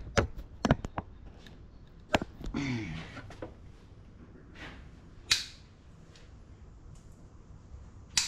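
Diagonal cutters snipping zip ties off wiring: a quick run of sharp snaps in the first second, then single snaps about two seconds in, around five seconds in and near the end.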